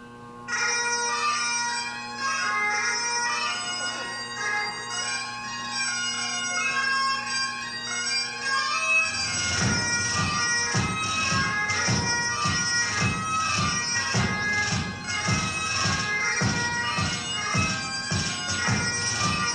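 Highland bagpipe music: a steady drone under a fast melody line. A low, regular beat joins about nine seconds in.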